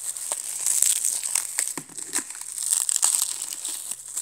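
Clear plastic shrink-wrap film crinkling as hands peel and crumple it off a small puzzle cube: a dense, continuous run of sharp crackles.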